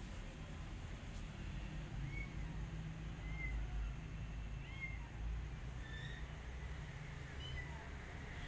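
Kitten mewing: about half a dozen short, high mews spaced a second or so apart, over a low steady rumble.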